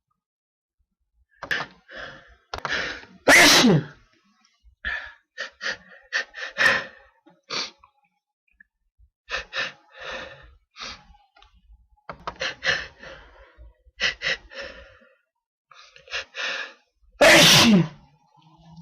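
A man's breath catching in short, sharp hitches, over and over at an irregular pace, as he fights an oncoming sneeze. Two loud sneezes break through, one about three seconds in and one near the end.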